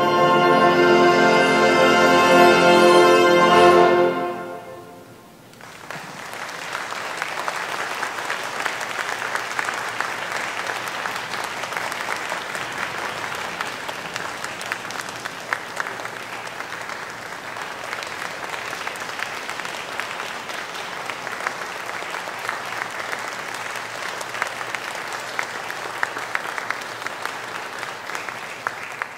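A concert wind band holds its final full chord, which is cut off about four seconds in and dies away in the hall's reverberation. Then the audience applauds steadily to the end.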